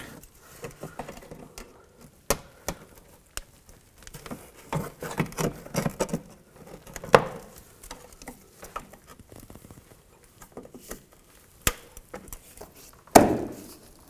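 Plastic push-pin fasteners being pried out of a plastic inner fender liner with a trim tool: scattered sharp clicks and snaps, with scraping and rustling of the liner between them.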